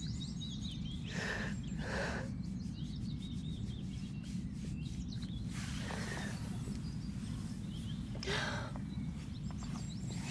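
Outdoor ambience: a steady low rumble of wind noise with birds chirping. A few short breaths are heard, about one and two seconds in and again near six and eight seconds.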